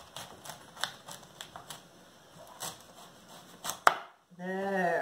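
Kitchen knife slicing down through a raw head of cauliflower, the florets crunching in scattered small clicks, ending with a sharper knock as the blade reaches the wooden cutting board about four seconds in.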